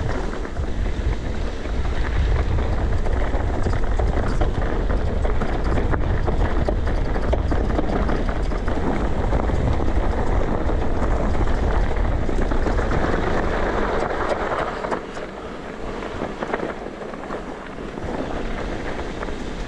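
Mountain bike running down a dirt singletrack: wind rushing over the microphone, tyres rolling on dirt, and the bike chattering over bumps. It quietens about fifteen seconds in as the speed drops.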